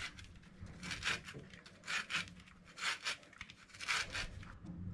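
An orange being grated on a metal grater: short rasping strokes, about one a second, as the peel is rubbed across the blades to take off the zest.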